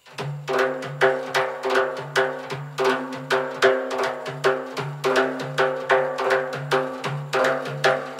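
Dayereh, a Persian frame drum, playing a solo rhythmic introduction: deep ringing strokes and sharper strikes in a steady, repeating pattern.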